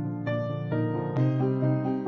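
Background piano music, soft and calm, with notes and chords changing every half second or so.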